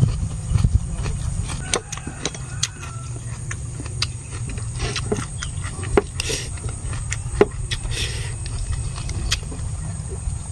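Eating sounds: chopsticks clicking against a ceramic rice bowl as rice is scooped up, with chewing in between, over a steady low rumble.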